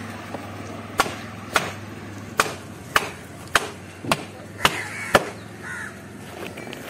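Heavy machete-like fish knife chopping into the head of a large barrier trevally on a wooden table: eight sharp chops, about two a second, stopping a little after five seconds in.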